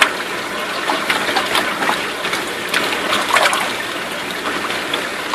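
Water running steadily in an aquaponics tilapia tank, with short splashes a few times as feeding tilapia break the surface.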